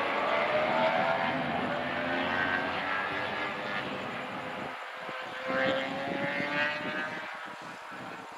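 A propeller aircraft's engine running steadily, its pitch slowly rising and its level easing off over the last few seconds.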